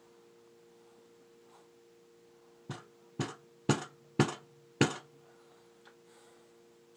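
Five sharp knocks about half a second apart, from a paintball gun being banged to shake a jammed paintball out of its barrel.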